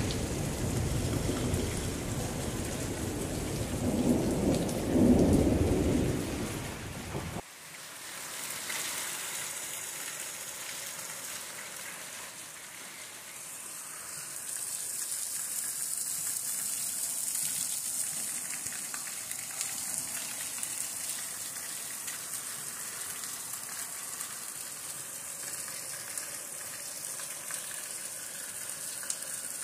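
Heavy rain with a deep rumble that swells about four to five seconds in and cuts off suddenly about seven seconds in. After that, a steady hiss of rain falling, stronger and higher from about thirteen seconds in.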